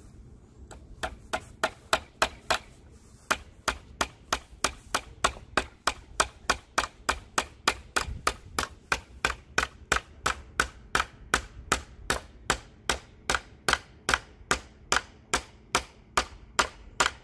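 Hammer driving nails into a wooden board: a steady run of sharp blows, about three a second, with a short pause about three seconds in.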